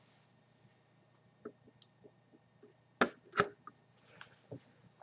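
Test leads with banana plugs being handled at a laboratory voltmeter: a few faint ticks, then two sharp clicks less than half a second apart about three seconds in, followed by small ticks.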